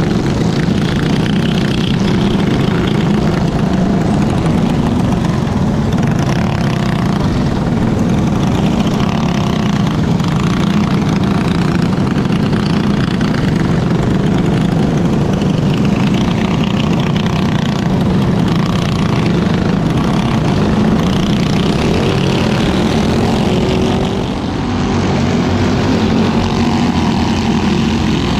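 Onboard sound of a superstock racing kart's single-cylinder engine running hard and steadily around a dirt oval, with a brief dip in the engine sound about 24 seconds in.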